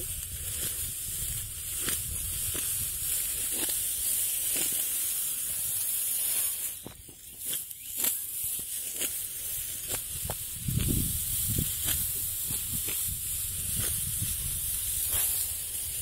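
Dry rice straw rustling and crackling as it is handled and gathered into bundles, over a steady high hiss. A brief low rumble comes about eleven seconds in.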